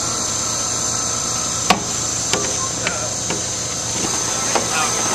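A steady high whine over a low hum, with about five sharp knocks or clicks scattered through the middle. The loudest knock comes just under two seconds in.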